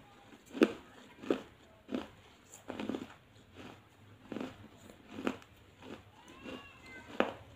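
Crunching and chewing pieces of a lightly wetted earthenware clay bowl in the mouth: sharp crunches come about every two-thirds of a second as the fired clay breaks between the teeth.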